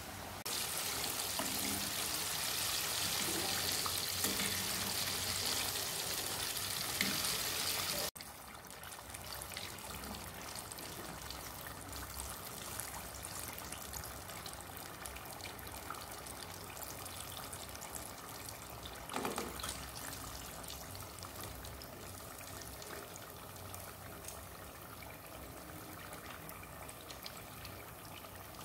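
Flour-battered chicken pieces deep-frying in hot oil in an aluminium pot: a steady, loud sizzle that drops suddenly to a quieter, crackling sizzle about eight seconds in, with a brief clatter a little past the middle.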